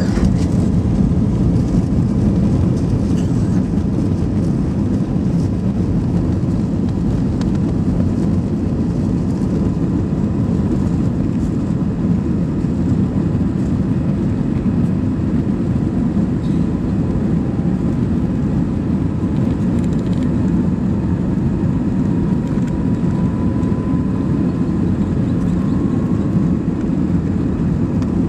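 Steady engine and airflow noise heard inside the cabin of an Airbus A319 airliner, a deep, even rumble, with a faint thin whine that rises slightly in pitch past the middle.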